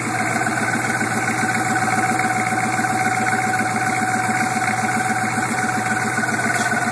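1987 Suburban's 6.2-litre turbo diesel V8 idling with a fast even clatter and a steady high tone over it. This is the weird noise the owner hears at start-up, which has grown louder over the past year and usually goes away once the engine is warm.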